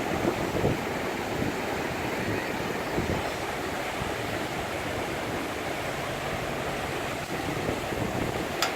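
Fast-flowing Kunhar River water rushing steadily, with one sharp click near the end.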